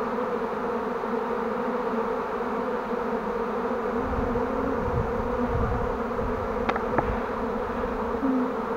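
A swarm of honeybees buzzing: a dense, steady hum of many bees flying around and settling on a swarm box. Two short knocks come about two-thirds of the way through.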